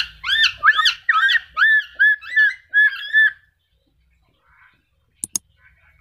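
Black-capped lory calling: a fast run of about eight shrill, repeated notes, each rising then falling, which stops a little over three seconds in. Two sharp clicks come near the end.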